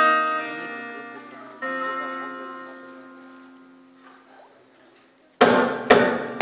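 Live acoustic band: two ringing acoustic guitar chords, the second about a second and a half after the first, each left to fade. About five seconds in, the band comes back in loudly with sharp rhythmic strikes about two a second.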